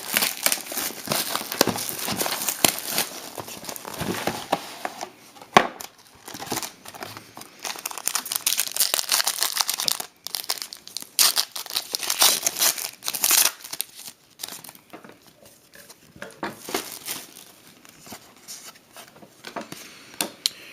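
Wrapping on a box of trading cards being torn open and crinkled by hand: a run of irregular crackles and rips, with a couple of short pauses.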